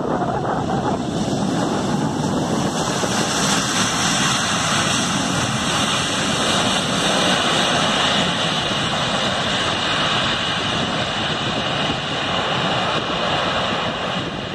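Airliner's jet engines in reverse thrust just after touchdown on a wet runway, a loud, steady rushing noise as the reversed exhaust blows runway water out to the sides. It grows over the first few seconds and eases slightly near the end.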